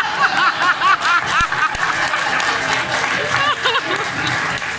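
Audience laughing at a joke: one person's quick, repeated ha-ha laugh in the first second and a shorter burst about three and a half seconds in, over the general hubbub of the crowd.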